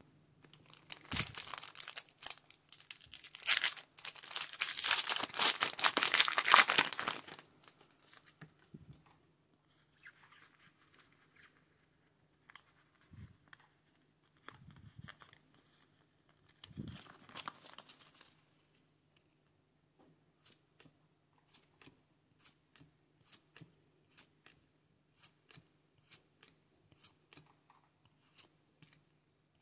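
A Pokémon trading card booster pack's foil wrapper being torn open and crinkled, loud for several seconds. Then comes softer rustling of the cards being handled, followed by a steady series of light clicks, about one or two a second, as the cards are flicked through one by one.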